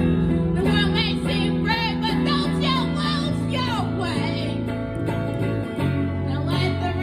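Live acoustic blues song: a voice sings with vibrato over strummed acoustic guitar chords, with the voice strongest from about a second in until past the middle.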